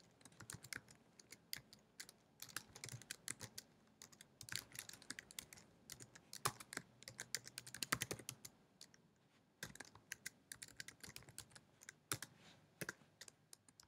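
Faint typing on a computer keyboard: irregular runs of keystrokes with short pauses as a command is typed out.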